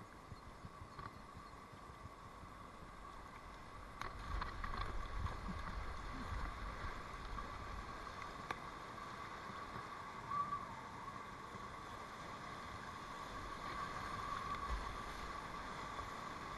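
River water splashing and rushing around a kayak and its paddle strokes as it heads into a whitewater rapid, getting louder about four seconds in, with a few low thumps.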